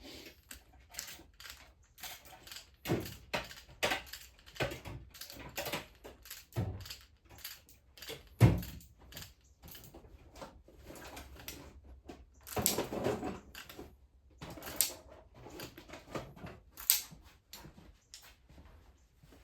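Tools and metal objects clinking, knocking and clattering as someone rummages through them for a telescoping magnet pickup tool, with one sharp knock about halfway through.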